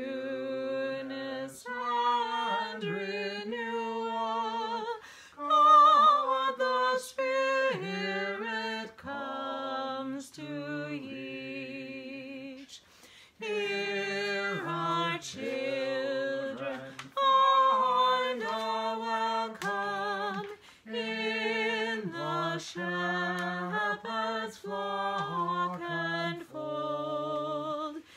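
A man singing a hymn alone, unaccompanied, holding slow notes with vibrato and pausing briefly between phrases.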